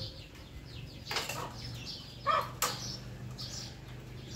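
Knife chopping boiled chicken, bones and all, on a wooden chopping block: three sharp chops, the last two close together, with birds chirping in the background.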